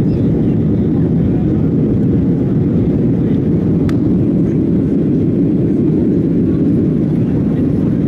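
Boeing 737-800 cabin noise in flight: a steady, loud low rumble of the engines and airflow heard from inside the passenger cabin. A single sharp click about four seconds in.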